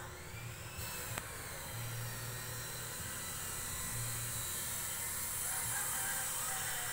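Steady background hiss picked up by the phone's microphone, with one faint click about a second in.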